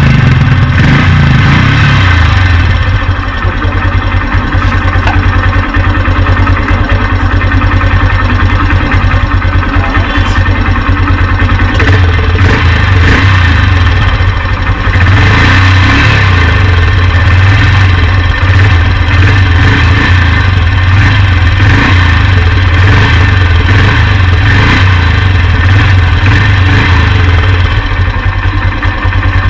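Motorcycle engine running at a steady idle, its exhaust note loud and close through the silencer, with a fast even pulsing.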